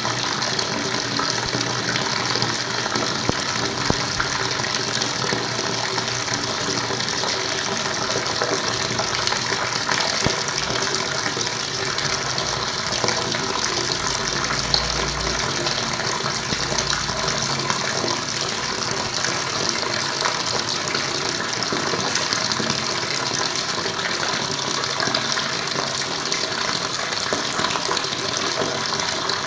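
Water flowing steadily, a constant gushing rush that stays even throughout.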